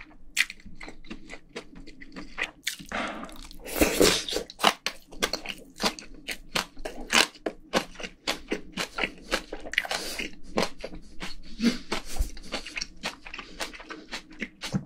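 Close-miked chewing of spicy braised pork ribs with green onion: a steady run of short, wet mouth clicks, several a second, with louder bursts about four seconds in and again about ten seconds in.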